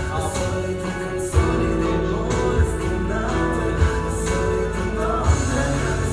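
A song with singing, with a short low thump every second or two.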